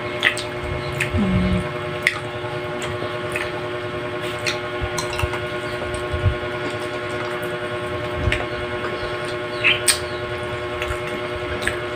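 Close-up eating sounds of people eating with their hands: scattered chewing and lip-smacking clicks and small soft thumps, over a steady electrical hum.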